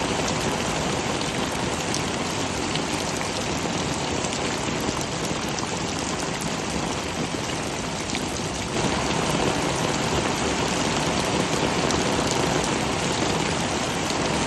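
Heavy rain falling steadily, a dense even hiss of drops. About nine seconds in it abruptly turns slightly louder and fuller.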